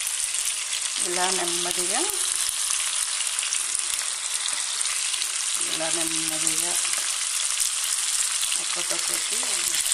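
Masala-coated fish pieces shallow-frying in hot oil in a pan, with a steady sizzle.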